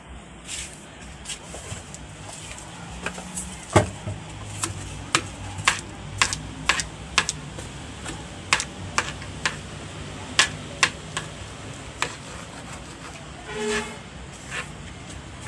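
A string of sharp clicks and knocks at an uneven pace, about one or two a second, over a steady low hum. The loudest is a heavier knock about four seconds in.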